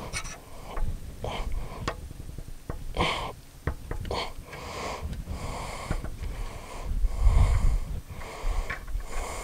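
Flaring tool being screwed down onto the cut end of a metal fuel line, squeaking with each turn of the handle about once a second. A few light clicks come first as the tool is set on the pipe.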